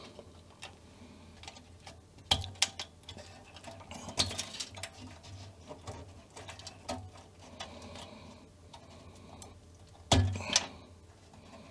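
Plastic wire-harness connectors being pulled by hand off a Commodore 1541 floppy drive's circuit board: scattered small clicks and scrapes. Louder clicks come about two and four seconds in, and two sharper knocks come about ten seconds in.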